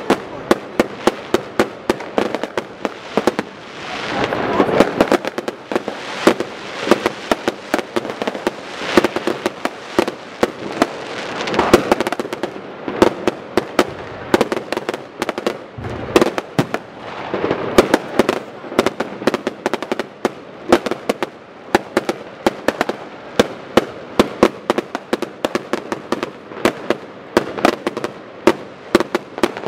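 Fireworks going off in a dense barrage: a continuous string of sharp bangs from firecrackers and exploding shells, several a second, with swells of noise now and then.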